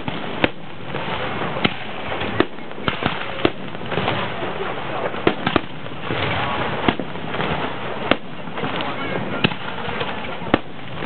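Aerial fireworks display: sharp bangs of shells bursting, irregular and about one a second, over a steady noisy wash between them.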